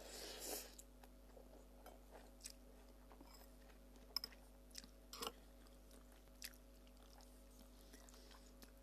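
Faint eating sounds from a bowl of instant noodles: a soft slurp of noodles at the start, then quiet chewing with a few scattered small clicks.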